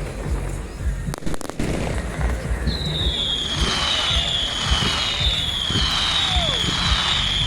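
Fireworks going off: a few sharp cracks, then from about a third of the way in a shrill whistling firework whose high whistle falls in pitch over and over, about once a second, over low crackling rumble.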